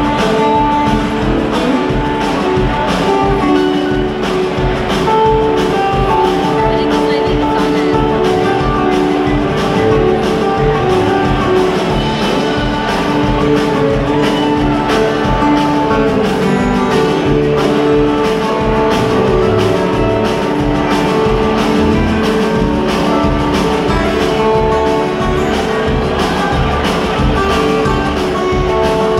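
Live string band playing an instrumental passage on acoustic guitars, upright bass and drums: held melody notes over a steady beat, heard from far back in a concert hall.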